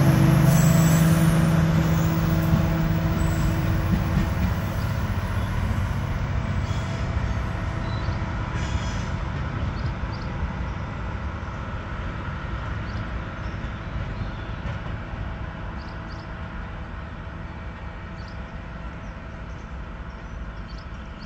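A Matisa track-maintenance work train's diesel engine and its wheels on the rails as it pulls away. The engine hum fades within the first few seconds, and the rolling rumble dies away steadily into the distance.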